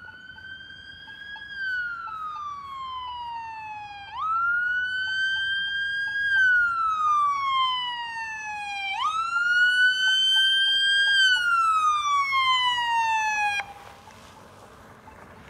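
Electronic emergency siren on a responding fire-district SUV, in wail mode: three slow cycles, each rising quickly and then falling slowly. It grows louder as the vehicle approaches and cuts off suddenly near the end.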